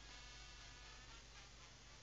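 Near silence, with faint music.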